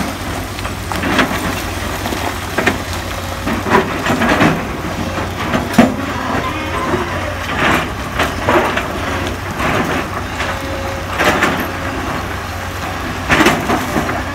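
Komatsu PC200 excavator's diesel engine running steadily under load as its steel bucket pushes and pries at quarry boulders, with irregular knocks and clatters of rock breaking loose and tumbling down the pile.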